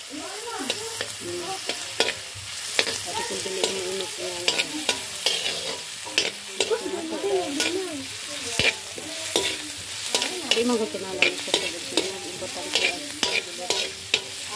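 Chopped garlic, shallots and ginger sizzling in a metal wok while a spatula stirs them, its edge scraping and clicking against the wok many times.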